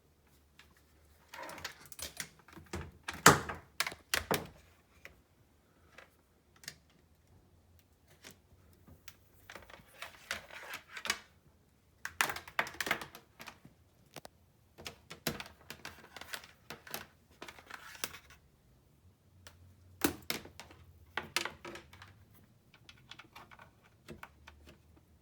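Defective Chuwi laptop charger making strange loud noises: irregular bursts of sharp crackling clicks that come and go every few seconds, the loudest about three seconds in.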